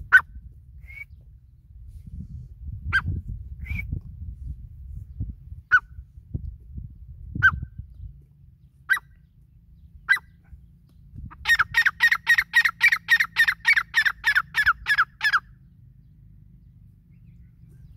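Grey francolin calling: a short single note every second or two, then a fast run of about sixteen repeated notes, some four a second, lasting about four seconds.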